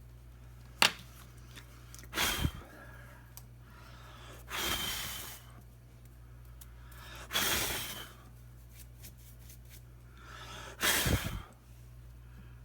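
Heavy breathing close to the microphone: four loud breaths, some puffing on the mic, spaced about every three seconds, with a sharp click shortly before the first.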